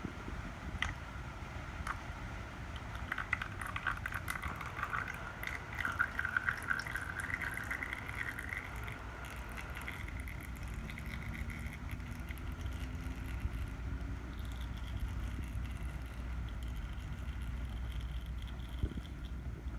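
Engine oil draining out of a Yamaha YZ85's drain hole and running onto the floor, a steady liquid trickle with a low steady hum beneath.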